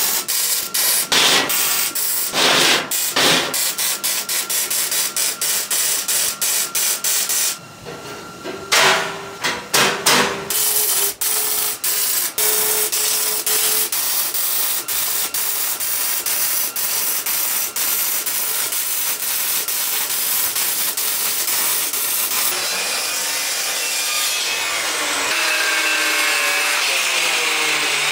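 Wire-feed (MIG) welding on steel: a steady crackling hiss laid down in runs, with short pauses between beads. Near the end an angle grinder runs against steel.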